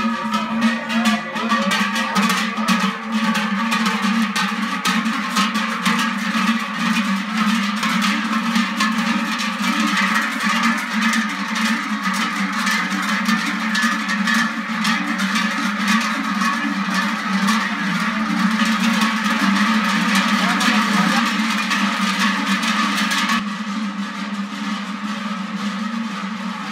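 Many cowbells (cencerros) clanging together in a dense, continuous jangle as a group walks in procession. About 23 seconds in the sound turns duller and a little quieter.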